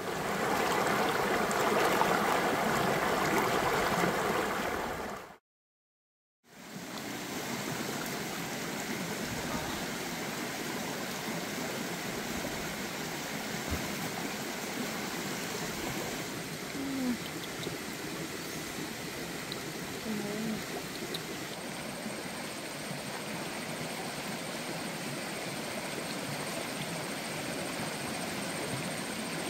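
A whole chicken roasting over a wood fire, sizzling, for about five seconds. After a brief dropout to silence, a forest stream's water flows with a steady rush.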